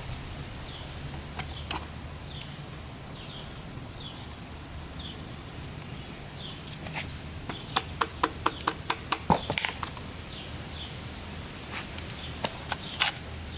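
Sharp clicks and taps of hand tools and metal parts while a YZ250F engine's clutch side is taken apart, with a quick run of about eight clicks in two seconds a little past the middle and a few single clicks before and after.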